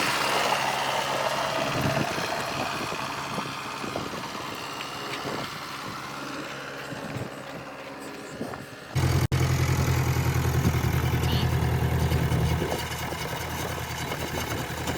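Heavy machine's diesel engine running steadily. About nine seconds in it cuts abruptly to a louder, deeper engine note, which eases off a few seconds later.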